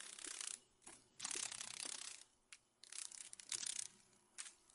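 Faint, dry rattling in irregular bursts of up to about a second, given as the sound of a dragonfly's wings.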